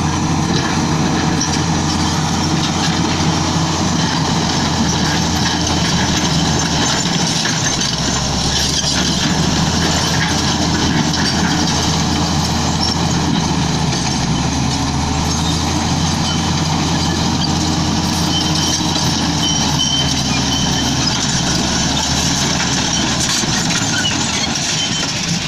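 Komatsu D85E-SS bulldozer's diesel engine running steadily under work, its note shifting about seven seconds in and again near the end.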